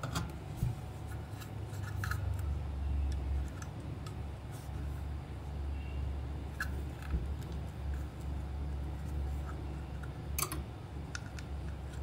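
Scattered small clicks and scrapes of a thin metal wire and hard plastic toy parts being handled and fitted together, with a sharper click near the end, over a steady low hum.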